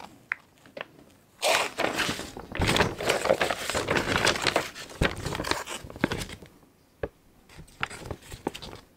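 Large printed paper pattern sheets rustling and crinkling as they are handled and turned over, loudest from about a second and a half in until about six seconds in. A sharp tap follows, then a few softer rustles near the end.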